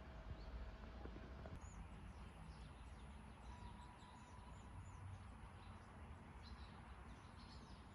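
Faint outdoor ambience with small birds chirping: many short, high calls, starting about a second and a half in.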